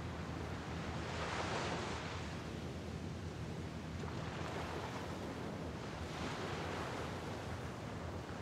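Small waves of San Francisco Bay washing onto the shore, the wash swelling three times, over a steady low rumble.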